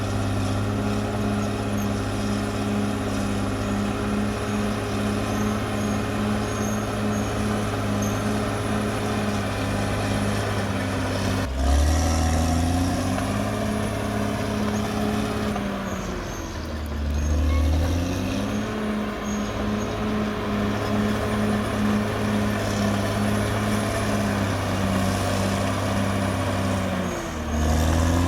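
Caterpillar D6R XL bulldozer's diesel engine running steadily. Its note drops in pitch and climbs back twice, about twelve and seventeen seconds in, and dips once more near the end.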